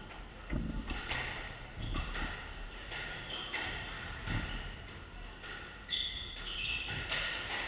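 Squash rally: the ball smacking off racket strings and the court walls about once a second, with shoes squeaking and thudding on the wooden floor as the players move.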